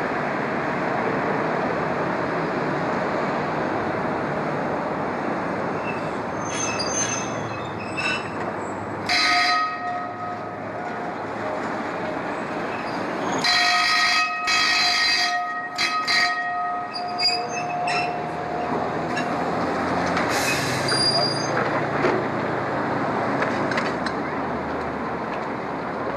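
A 1928 Milan Peter Witt streetcar rolling on steel rails with street traffic around it, then its wheels squealing in high, ringing tones on curved track: a short squeal about nine seconds in and a longer one from about halfway through, with clicks from the wheels over the rails in between.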